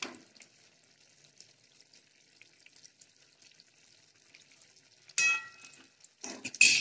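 Curry simmering and sizzling faintly in a metal kadai with freshly added ghee. About five seconds in, a metal spoon strikes the pan with a short ring, and near the end it scrapes through the curry as it is stirred.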